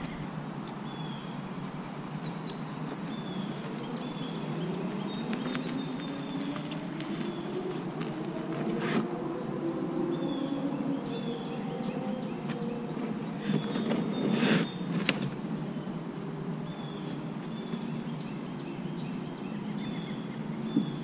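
A kayak on a wheeled cart being rolled across grass and lifted onto a hitch-mounted truck bed extender, with a few knocks from the hull and cart, loudest about 9 seconds in and again around 14 to 15 seconds. Birds chirp in the background, and a low hum rises and then falls in pitch in the middle.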